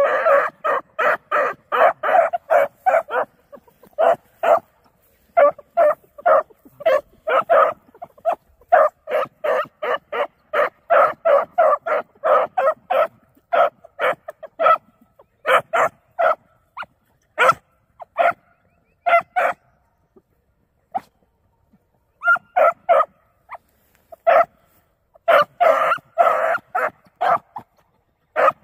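Beagle pups giving tongue on a rabbit's scent trail: runs of short, high barks at about three a second. The barking thins out and nearly stops about twenty seconds in, then starts again.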